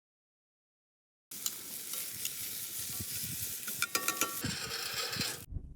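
Food sizzling as it is stirred, with a few short metal clinks around four seconds in. The sound cuts in suddenly a little over a second in.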